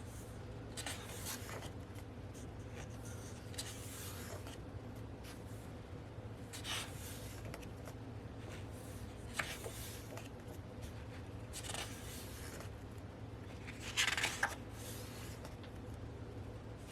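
Paper rustling and sliding as glossy photobook pages are turned and handled, in short scattered bursts, over a steady low hum of room tone.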